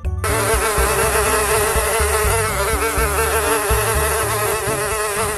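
Flies buzzing in a continuous drone whose pitch wavers, starting just after the beginning.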